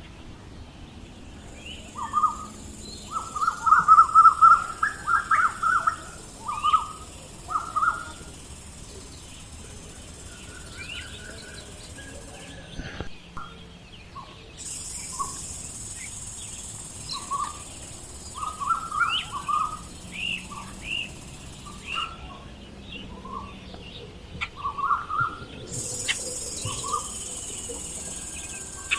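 Birds chirping in short, repeated bursts, loudest in a busy cluster a few seconds in. Behind them runs a steady high buzz that cuts out twice.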